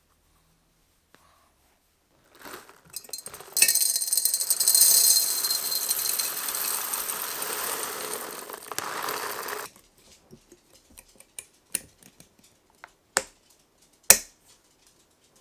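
Whole roasted coffee beans poured from a coffee bag into a glass jar: a bag crinkle, then about six seconds of continuous rattling patter as the beans hit the glass and each other. After it stops, scattered light clicks and two sharper taps.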